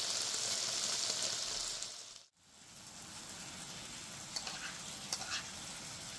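Pork sizzling on a grill: a steady hiss that cuts out sharply about two seconds in and comes back fainter, with a few small pops and crackles.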